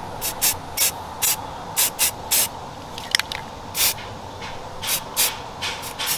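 Aerosol spray-paint can fired in a quick series of short spritzes, about two a second, as paint is dabbed through a stencil, with a single sharp click about three seconds in.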